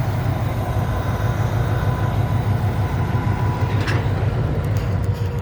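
A steady, loud, low engine rumble with an even pulsing, and a brief click about four seconds in.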